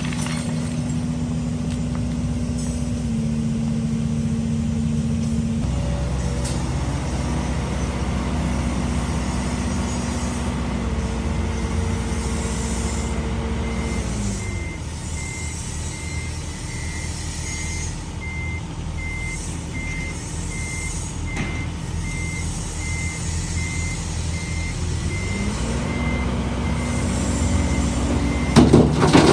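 Heavy diesel engine running steadily, its pitch dropping about halfway through and climbing again near the end, while a reverse warning beeper sounds in an even series of beeps through the second half. A sudden loud burst comes right at the end.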